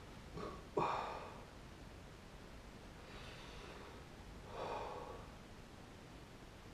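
A man breathing hard through the burn of a superhot chilli pepper: a sharp, sudden breath about a second in, then a slower in-and-out breath between about three and five seconds.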